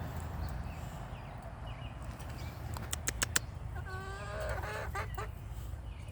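Young chickens clucking: a short run of quick pitched calls about four seconds in, preceded by a few sharp clicks, over a steady low rumble.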